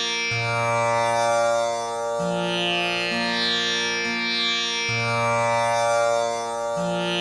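Tanpura drone: four strings plucked in turn in a steady repeating cycle about every four and a half seconds, each note ringing on with a buzzing shimmer, the drone for practising Sa.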